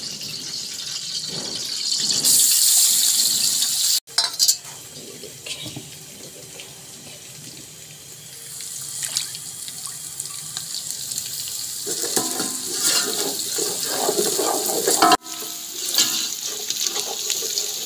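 Hot oil and ghee sizzling in a pot as crushed garlic and ginger fry for a tadka. The hiss swells and fades and breaks off abruptly twice, with some clatter from stirring in the pot a little before the second break.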